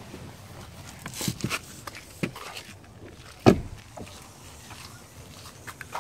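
A Tesla Model S driver's door being opened and a person climbing out, with rustling and clicks, then the door shutting with one solid thump about three and a half seconds in, followed by light footsteps on concrete.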